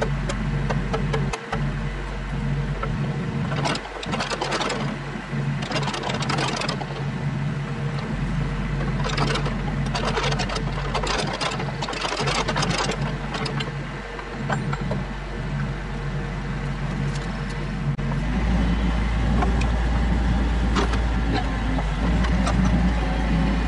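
Kubota KX121-3 mini excavator's four-cylinder diesel engine running steadily while working, with bursts of clattering twice in the first half. The engine grows louder about three-quarters of the way through.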